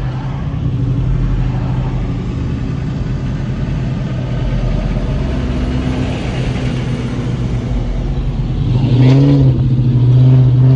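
A car engine and road noise heard while driving, a steady low drone, with a brief rise and fall in engine pitch, like a rev, about nine seconds in.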